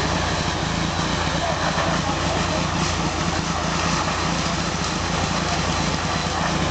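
An engine running steadily at a constant speed, a low even hum under a wide hiss of noise.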